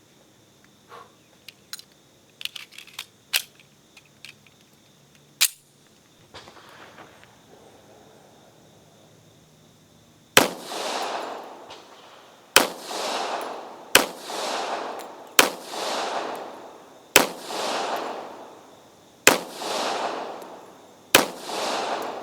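M1911A1 .45 ACP pistol fired seven times at a steady pace, each shot followed by a long echo. Before the shooting, light metallic clicks of the pistol being handled, with one sharper snap about five seconds in.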